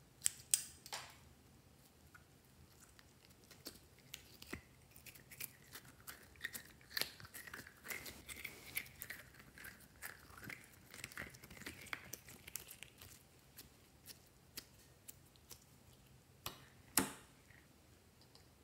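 Scissors snipping through a squishy toy's rubber skin near the start, then sticky slime being stretched and squeezed by hand, giving a long run of small clicks and crackles, with one sharp click near the end.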